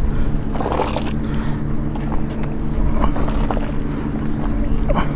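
An engine running steadily, a low hum with several fixed tones. Over it come a few faint rustles and knocks as a wet crab-ring rope is hauled in hand over hand.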